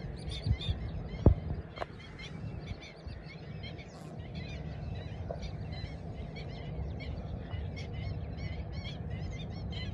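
A flock of birds calling, many short, high calls repeated throughout over a low outdoor rumble, with a single dull thump about a second in.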